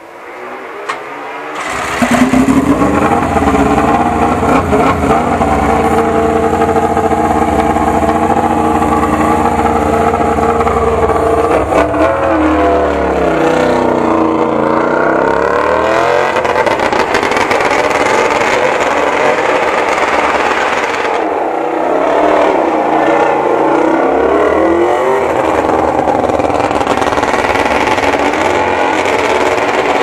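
Yamaha YZR-M1 MotoGP bike's crossplane inline-four engine fires up suddenly about two seconds in, then runs at a steady high idle. From about twelve seconds the revs sweep down and up as the bike pulls away, and there are more rising and falling revs a few seconds later.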